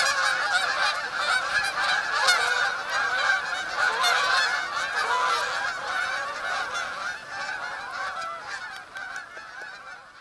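A large flock of Canada geese honking continuously, many calls overlapping, as it flies overhead. The chorus fades steadily over the last few seconds as the flock moves off.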